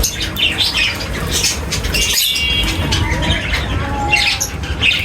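A group of small birds chirping and twittering busily, many short overlapping calls, with a few brief held whistled notes about two seconds in.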